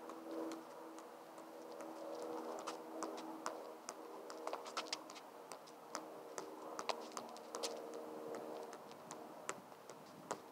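Football bouncing off a player's head during header juggling: a light tap about twice a second, each touch keeping the ball up. A faint steady hum runs underneath.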